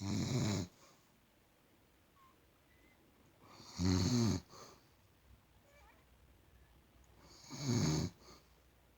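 An elderly woman snoring in her sleep: three loud snores, each under a second long, about four seconds apart.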